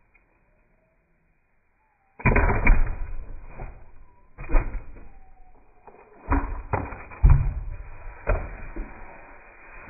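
A maul splitting a cypress log round by hand, with the split pieces clattering onto concrete. After a couple of seconds of near silence, a series of about six sharp wooden knocks and clatters starts about two seconds in, each dying away quickly.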